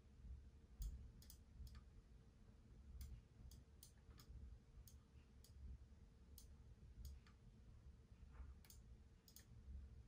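Faint, scattered clicks of a computer mouse at irregular intervals, some in quick pairs like double-clicks, over a faint steady hum.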